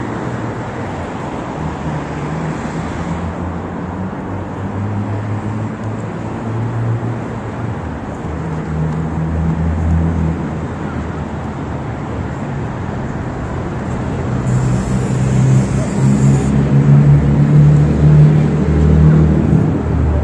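City street traffic: motor vehicles running and passing close by, with a low engine hum that grows louder over the last few seconds. A short hiss comes about two-thirds of the way through.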